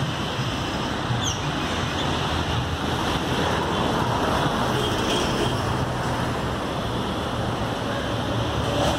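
Steady, continuous noise of highway traffic, a constant wash of tyres and engines with no single vehicle standing out.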